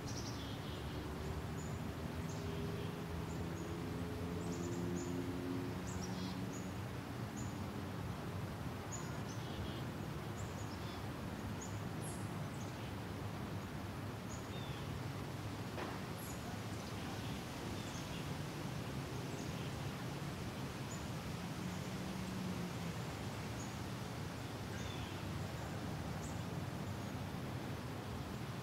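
Woodland ambience: a steady hiss with short, faint high chirps scattered throughout, and a faint low hum that comes and goes, strongest in the first few seconds.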